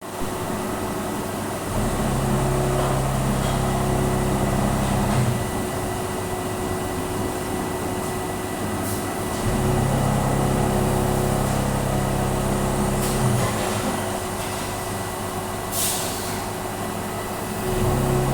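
Tornos Déco 13 Swiss-type CNC lathe running a production cycle. A steady machine hum and whine is joined by a lower drone that comes in and drops out again about every eight seconds, with a few short hisses.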